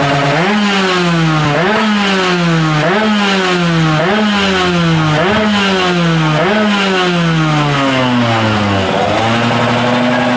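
Tuned 140cc two-stroke motorcycle engine with a racing exhaust being blipped over and over: about every second and a quarter the revs jump up sharply and then fall away slowly. Near the end it drops back to a steady idle.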